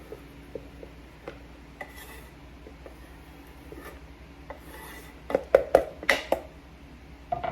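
Chopped herbs and vegetables being scraped off a cutting board into a bowl: light scraping and ticking, then a quick run of sharp knocks and clatters a little past halfway, and one more near the end.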